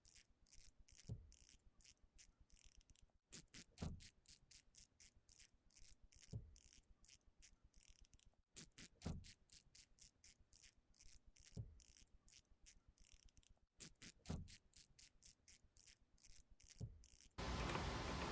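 Socket ratchet clicking in quick, even runs of about five clicks a second, with a short pause every few seconds, as it turns the bolt of a rivet-nut setting tool to draw a rivet nut tight in sheet metal. A duller knock comes every couple of seconds, and a steady hiss starts near the end.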